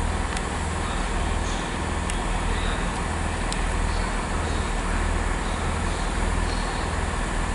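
Diesel locomotive approaching slowly, its engine giving a steady low rumble that throbs about twice a second, with a few faint clicks.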